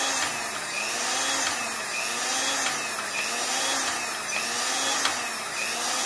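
Domestic sewing machine's electric motor running unmounted, its speed rising and falling about once a second as the foot controller is pressed and eased. It is running normally after the repair for weakness, with a few sharp clicks.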